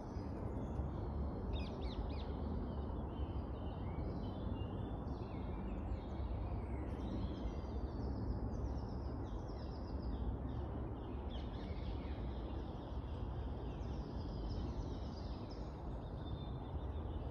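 Woodland birds chirping and singing, many short quick notes overlapping throughout, over a steady low rumble.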